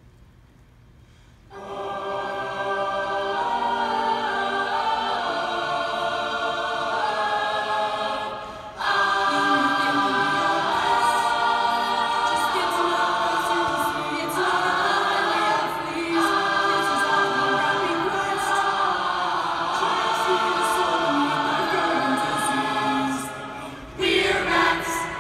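Large mixed choir of men and women singing in harmony. The choir comes in suddenly about a second and a half in and pauses briefly near the end.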